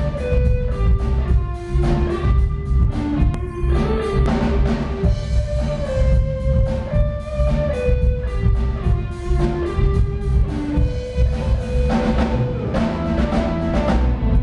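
Live band playing: a drum kit keeping a busy beat under an electric bass and an amplified electric guitar, with a melody line moving in held, stepped notes over them.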